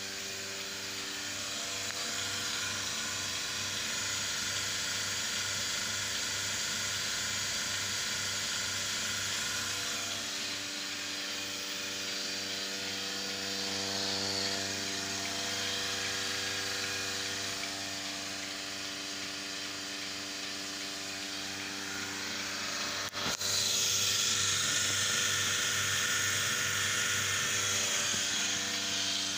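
Milking machine's vacuum pump unit running steadily: a hum of several steady tones over a low pulsing throb. Near the end there is a sharp click, after which it runs louder.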